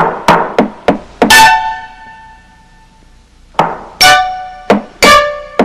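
Cartoon hammer taps on a nail: a quick run of about five strikes, a pause of about two seconds, then four more, several of them followed by a ringing musical note.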